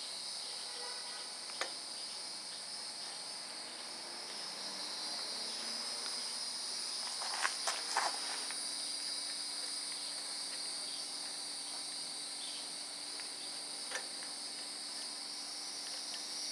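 Steady high-pitched chirring of insects, with a few light clicks: one about one and a half seconds in, a small cluster about halfway through, and one more near the end.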